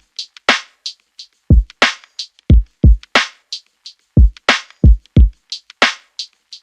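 Background music: an electronic drum-machine beat of deep, pitch-dropping kick drums, sharp snare-like claps and light hi-hat ticks in a repeating pattern.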